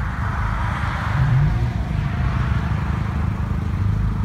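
Steady low rumble of vehicle noise from cars on the road, with a rushing swell about a second in.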